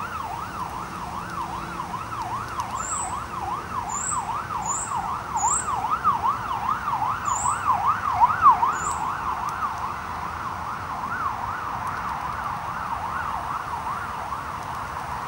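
Emergency-vehicle siren in a fast yelp, rising and falling about three times a second, its sweep blurring after about ten seconds. Six short high chirps come between about three and nine seconds in.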